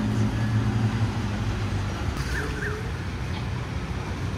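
Street traffic noise: a motor vehicle's engine hum fades out in the first second or so, leaving a steady road rumble with a couple of faint short chirps.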